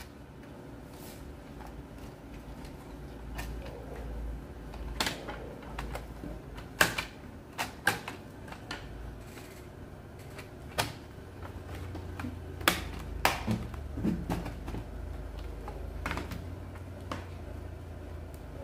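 Irregular sharp plastic clicks and knocks as the bottom cover of an Acer laptop is fitted back on and pressed into place, over a low steady hum.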